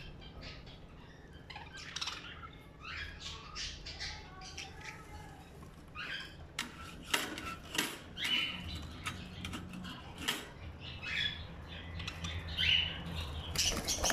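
Budgerigars chirping and squawking in short calls, with a few sharp clicks about halfway through. Just before the end, a startled budgie breaks into rapid wing flapping inside the cage.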